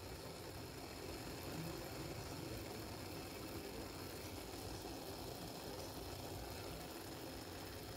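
Pot of ginger water simmering on a stovetop with the heat turned down: a faint, steady bubbling.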